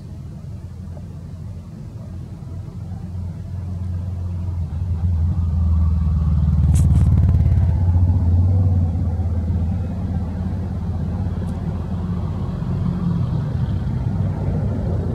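Low engine rumble of a passing motor vehicle, swelling to a peak midway and easing off again. A short sharp click about seven seconds in.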